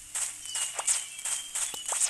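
A quick series of short crunching footfalls, about four or five a second, with a faint thin high-pitched tone underneath.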